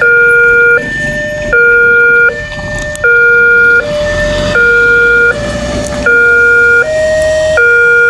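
Railway level-crossing warning siren sounding a two-tone alarm, a louder low tone alternating with a quieter higher tone about every three-quarters of a second. About halfway through, the pattern falters once and the loud low tone drops out, as this crossing's faulty siren does.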